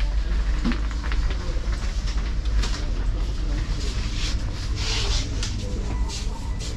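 Busy supermarket aisle heard from a carried camera: a steady low rumble under scattered clicks and rustles, with faint voices of shoppers.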